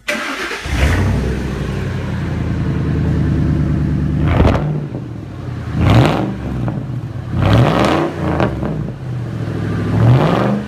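Straight-piped Ford Expedition 5.4-litre V8 exhaust, with no muffler, running loudly and blipped to higher revs about four times before dropping back.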